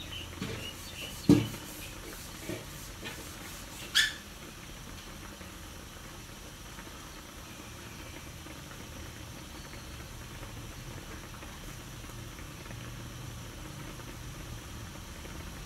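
Tocino (sweet-cured pork) boiling in its marinade in a wide aluminium wok, a steady low bubbling as the liquid cooks down. A few sharp knocks come in the first four seconds, the loudest about a second in.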